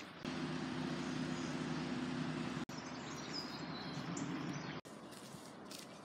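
A steady low mechanical hum, like an engine running, with a few birds chirping over it; it cuts off suddenly about five seconds in, leaving a quieter outdoor background.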